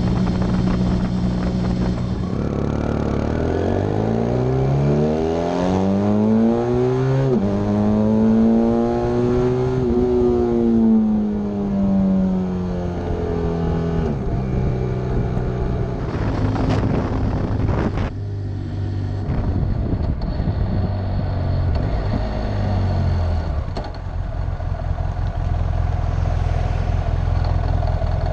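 BMW F800 GS parallel-twin motorcycle engine heard while riding: it runs steadily, then revs rise with a gear change partway up, ease off about a dozen seconds in, and run lower for the rest, with wind noise and some mechanical engine and gearbox noise.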